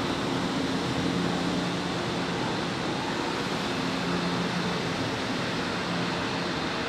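São Paulo Metro train standing at the platform, its equipment giving a steady hum and whir over the station's noise.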